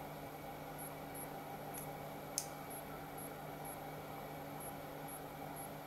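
Steady electrical hum with faint, short high-pitched chirps about twice a second. One sharp crackle comes about two and a half seconds in as solder melts and smokes on the induction-heated tip.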